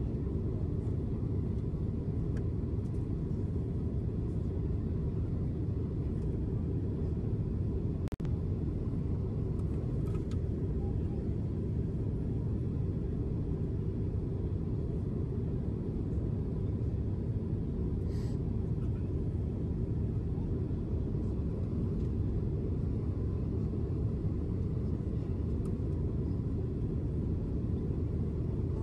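Steady low rumble of a Boeing 767-400's engines and airflow heard inside the cabin on final approach.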